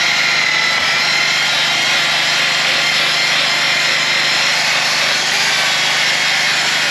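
Electric power sander running steadily on the wooden hull, a continuous rasping noise over a steady motor hum, sanding the hull back as prep for paint.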